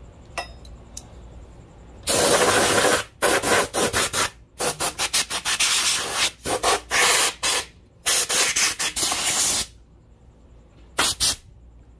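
Compressed-air blow gun fired in a string of hissing blasts, some short and some over a second long, from about 2 s in to nearly 10 s, then a quick double blast near 11 s, clearing metal chips from a miter saw.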